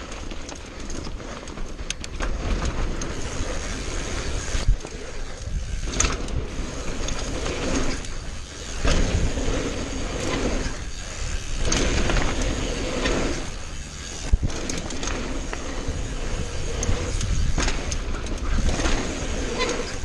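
Mountain bike riding fast down a dirt and gravel trail: tyres rolling over dirt, the bike rattling with sharp knocks over bumps and jumps, and wind rushing over the camera microphone as a deep rumble that swells and fades.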